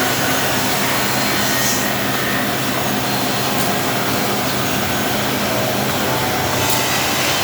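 Two-head drilling machine with automatic workpiece feed running steadily: a constant motor hum under a steady hiss, with a couple of light clicks.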